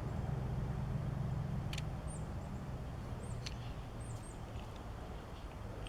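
Steady low background hum, with two faint clicks and a few short, faint, high chirps scattered through.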